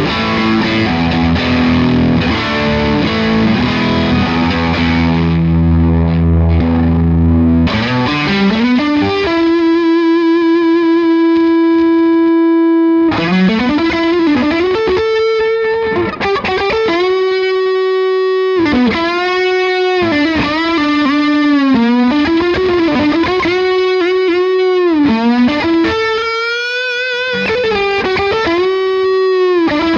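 Distorted electric guitar played through an Iannucci Audio King of Tone overdrive pedal, a clone of the Analogman King of Tone: chords for about the first eight seconds, then a lead line of long held notes with string bends and vibrato.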